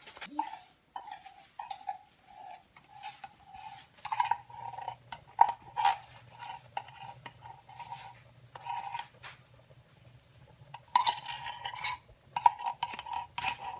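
Metal spoon scraping and tapping against a tin can, repeated clinks and scrapes as the last of the condensed milk is emptied into a pot of coconut milk. A low steady hum joins in about four seconds in.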